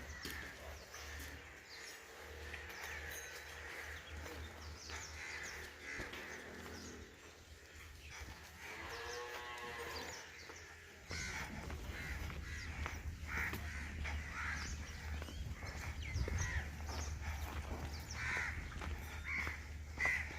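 Cattle mooing: one long call about nine seconds in, over a steady low rumble that gets louder about halfway through.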